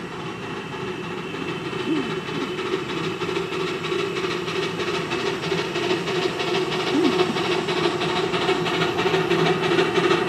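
Miniature Hunslet-type 0-4-0 saddle-tank steam locomotive hauling a passenger train, its exhaust beats and wheels on the rails growing steadily louder as it approaches.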